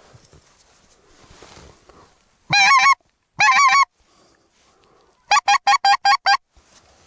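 Goose call blown close by: two drawn-out honks in a row, then, a little later, a quick run of five short honks.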